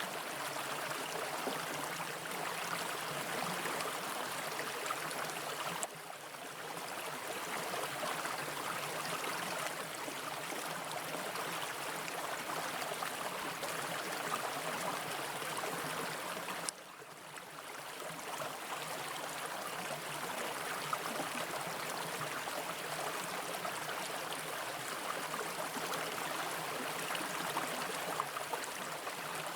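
Brook water running steadily over rocks, an even rushing with two brief sudden dips in level, about six and seventeen seconds in.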